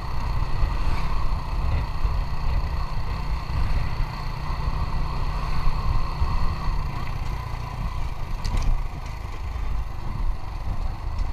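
Motorcycle engine running steadily under a heavy low rumble.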